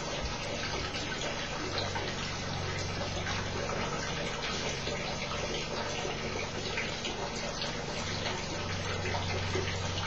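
Thin jet of water pouring from a tank orifice into a tub of water, splashing steadily, with a low steady hum underneath.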